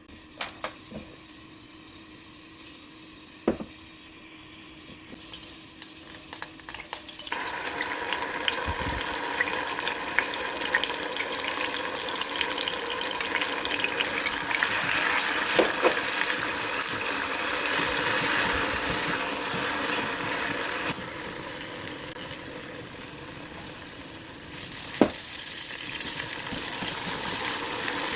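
Food sizzling in a hot frying pan, with scattered clinks of a utensil against the pan. The sizzle builds up suddenly about seven seconds in, eases off for a few seconds later on, then picks up again.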